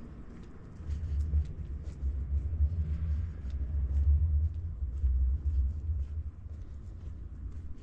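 A low, uneven rumble that swells about a second in and eases off after about six seconds.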